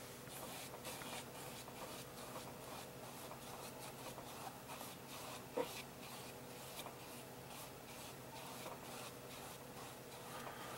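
Soft, repeated strokes of a paintbrush spreading wet acrylic varnish across a canvas, brushing out thick lines of varnish, with a small click about halfway through.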